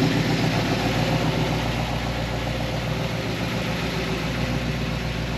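1973 Ford Mustang Mach 1's 351 Cleveland V8, with a Comp XE275H cam, long-tube headers and a Flowmaster stainless exhaust, idling steadily.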